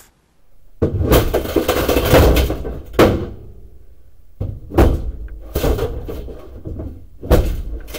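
Hammer banging on the sheet metal of a truck cab. A stretch of dense metal clattering and rattling is followed by several separate hard blows.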